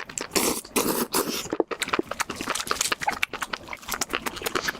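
Close-miked mukbang eating sounds: wet chewing and smacking of spicy mushrooms, a dense run of sharp mouth clicks, with a few breathy rushes of air in the first second.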